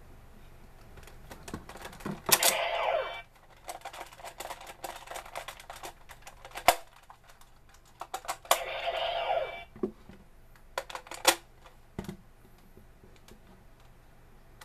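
Hard plastic toy parts (a DX K-Touch 21 and a Decadriver belt buckle) being handled and fitted together: scattered sharp clicks and knocks. There are two scraping stretches of about a second each, about two seconds in and again past eight seconds, and sharp snaps near seven and eleven seconds.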